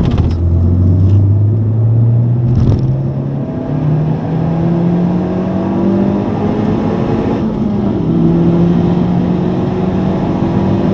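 Honda Civic Type R's turbocharged four-cylinder engine accelerating hard, heard from inside the cabin. Its pitch climbs steadily and drops with an upshift about a quarter of the way in and again about two-thirds in, then climbs again.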